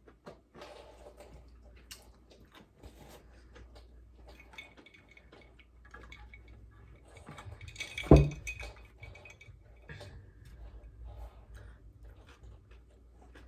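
Someone eating with utensils against a dish: small clicks and taps throughout, and one loud clink with a short ring about eight seconds in.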